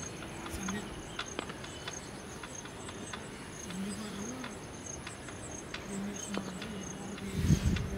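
Insects chirping steadily in the grass: a high, even, pulsing trill. Faint distant voices come and go, and there is a brief low rumble near the end.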